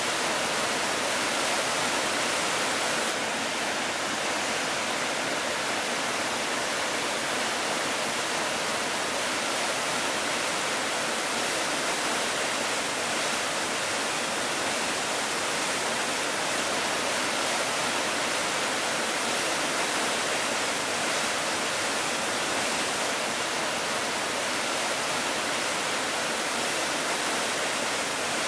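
Glacial meltwater rushing over rock, a steady even noise of flowing water, shifting slightly in tone about three seconds in.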